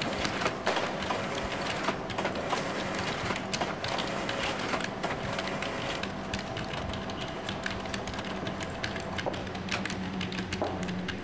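Computer keyboards being typed on: irregular clicking and clacking of keys over a steady low hum.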